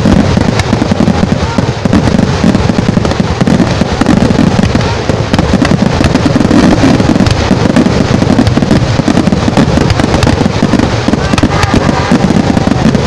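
Fireworks going off in a dense, unbroken barrage of firecracker bangs and crackling, loud throughout.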